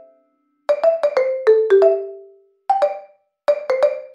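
Background music: a light melody of short, quickly fading mallet-like notes, played in quick runs of a few notes with brief silent gaps between them.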